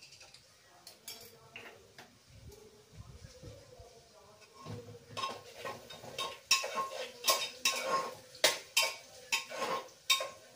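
Metal kitchen pots and utensils being handled: a run of clanks and clinks starting about halfway through, several leaving a brief metallic ring.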